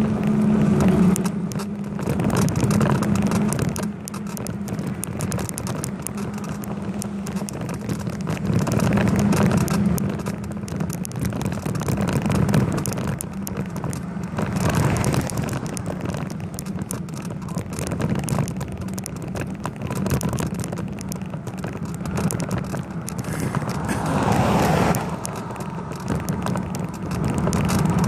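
Riding noise picked up by a camera mounted on a moving bicycle: a steady road rumble with constant fine rattling and clicking, swelling and easing every couple of seconds.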